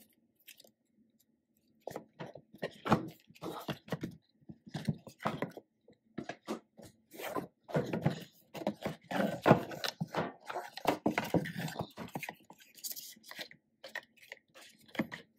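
Cardboard album box and paper inserts being handled: a busy run of scrapes, taps and rustles as hands slide the card packaging, lift the box lid and pull out the contents. It starts about two seconds in.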